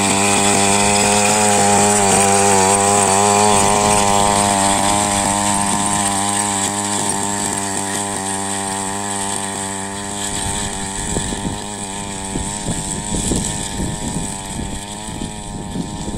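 Small petrol engine of a push-type power weeder running at high revs, its pitch wavering as the tines churn the soil. After about ten seconds it grows fainter and rougher, with an uneven low rumble.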